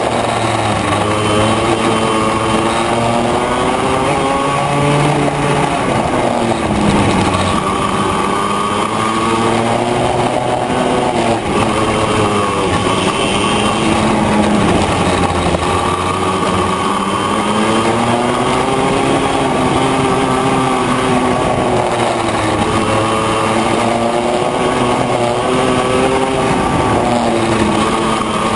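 Yamaha 100J two-stroke single-cylinder kart engine on an Arrow racing kart at speed, its pitch dropping and climbing again several times as the kart slows for corners and accelerates out onto the straights.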